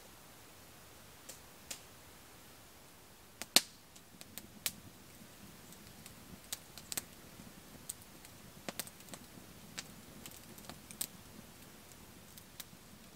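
Wood campfire crackling: scattered, irregular sharp pops and snaps, the loudest about three and a half seconds in.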